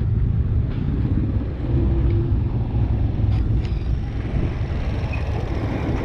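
Street traffic: a motorcycle tricycle's small engine running close by, over a steady low rumble.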